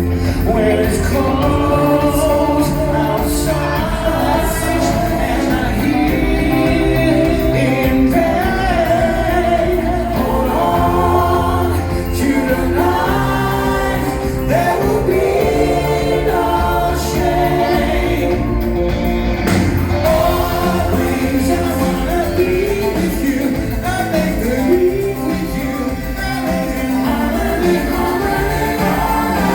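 Live synth-pop song: a lead voice singing over synthesizers and a steady electronic bass and beat, with other voices joining in.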